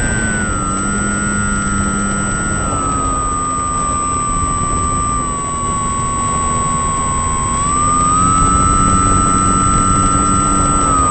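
An engine running under load, its steady whine easing down in pitch in small steps and rising again about eight seconds in, over a continuous rushing noise.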